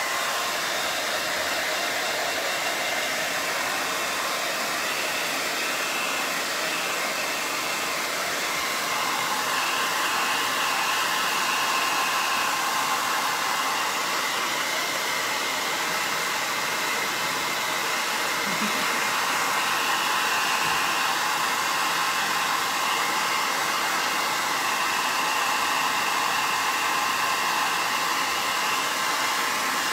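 Handheld hair dryer blowing steadily, a rushing air noise with a faint whine, drying wet antiquing glaze on a painted ceramic. Its tone shifts slightly and grows a little louder about nine seconds in.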